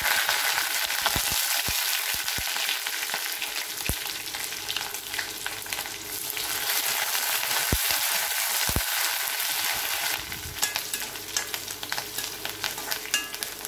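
Curry leaves, smashed garlic and urad dal sizzling and spluttering in hot oil in an iron kadai as a tempering, stirred with a steel ladle, with a few sharp clicks. The dense sizzle eases into lighter crackling about ten seconds in.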